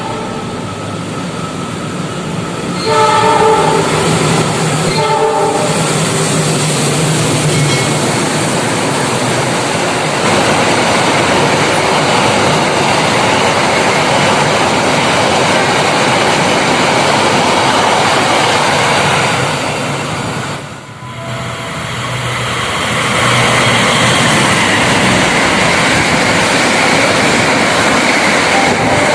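Indonesian express passenger train sounding two horn blasts about three seconds in, then rushing past at speed with steady wheel and rail noise. Near the end there is a sudden break, and another express train is heard passing at speed.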